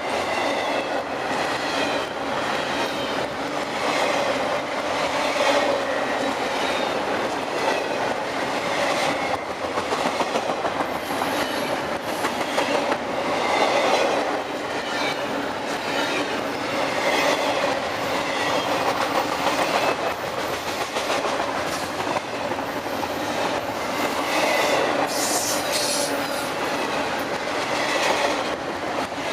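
Freight cars of a CSX intermodal train rolling past at speed, wheels clacking steadily over the rail joints, with brief high wheel squeals around the middle and near the end.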